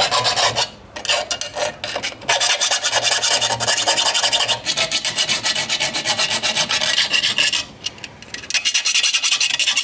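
Small hand file rasping back and forth in a freshly drilled hole in a car's A-pillar trim piece, smoothing the edge so it won't cut the rubber grommet. Quick, steady strokes, broken by brief pauses about a second in, about two seconds in, and for a moment near the end.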